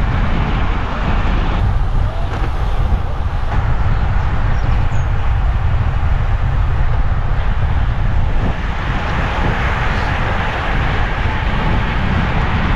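Loud, steady wind rush on an action camera's microphone from riding a road bike at speed.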